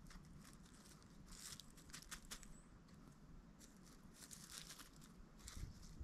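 Faint footsteps crunching and rustling on the forest floor: a few uneven steps.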